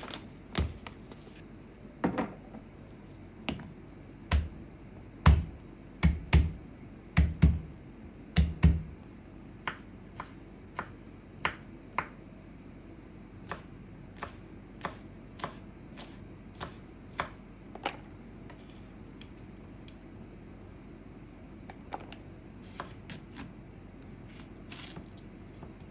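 Irregular sharp clicks and knocks of hard objects being handled and set down on a counter. The heavier knocks come close together in the first third, followed by lighter, scattered ticks.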